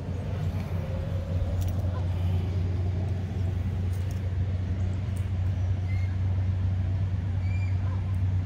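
Steady low mechanical hum, with a few faint short bird chirps above it.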